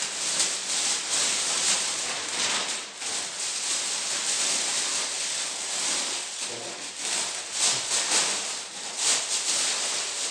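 Plastic packaging rustling and crinkling steadily as a woven polypropylene sack and plastic bags are opened and pulled at by hand to unwrap a fossil.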